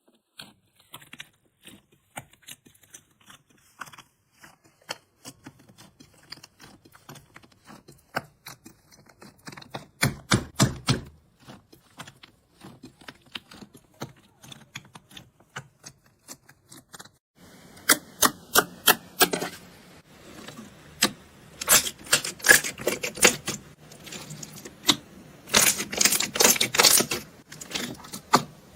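Crunchy slime being pressed and squished, giving rapid crackling and popping clicks. These are sparse at first, come in a loud cluster about a third of the way in, and grow dense and loud for the last third.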